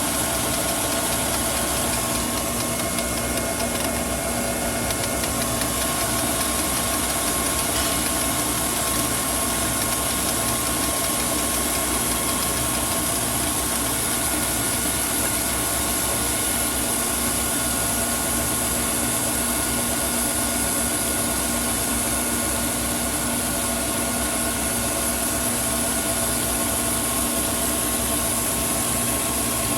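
Crankshaft grinding machine running steadily: an even mechanical hum with several held whining tones and a high hiss, unchanging throughout.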